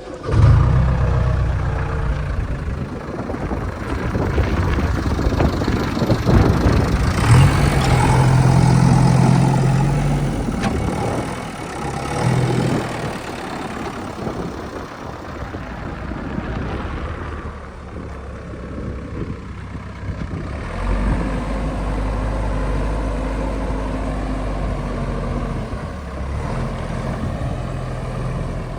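Heavy diesel machinery engine running, working harder and louder for a few seconds about seven seconds in, then settling into a steady lower drone.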